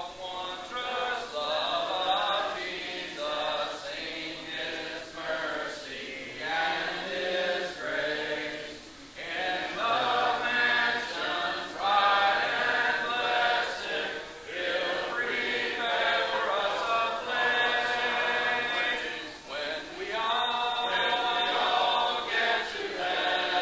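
A congregation singing a hymn a cappella, many voices together with no instruments, in phrases of a few seconds with short breaks between.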